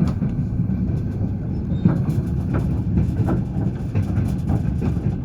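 Passenger train wheels clattering over rail joints: a steady low rumble broken by sharp knocks about once a second.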